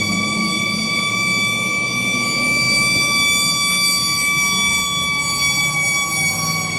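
Police car siren holding one steady high pitch over a low vehicle rumble, with a second, fainter siren tone sliding down in pitch in the second half.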